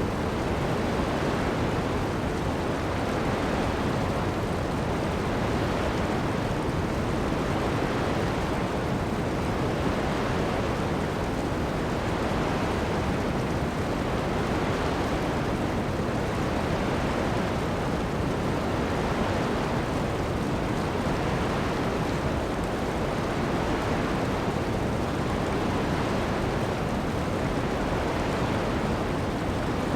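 Ocean waves washing onto a sand beach together with heavy rain: a dense, steady rush of noise with faint, slow swells every few seconds.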